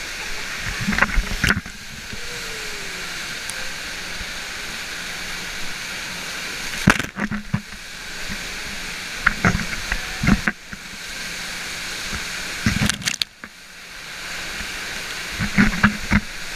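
Steady rush of water pouring over an indoor standing-wave surf ride. Clusters of sharp knocks and splashes break in every few seconds, around the first and second seconds, near the middle, and near the end.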